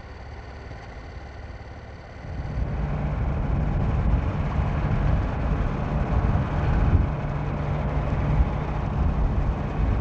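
A low, steady engine rumble with a constant low hum cuts in suddenly about two seconds in, over a quieter hum before it.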